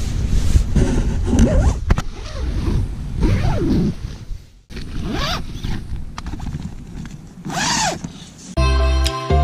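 Tent door zipper pulled along its track in several strokes, each a short rising and falling zip, with rustling of the nylon tent fabric. It breaks off abruptly about halfway through, and background music comes in near the end.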